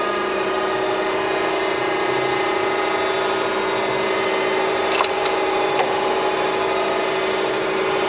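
Okamoto ACC-1224DX surface grinder running, its hydraulic pump and grinding wheel spindle giving a steady hum with a held tone. A couple of short clicks come about five seconds in as the table is moved by hand.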